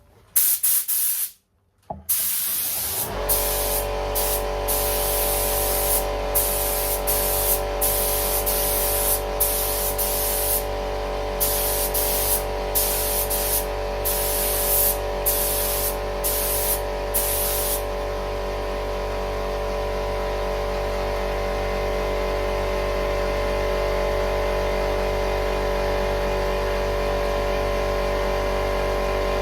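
2K clear lacquer being sprayed onto a headlight lens, a hiss coming in many short bursts, one per pass, that stop about two-thirds of the way through. A steady machine hum with a fixed pitch starts a few seconds in and keeps going.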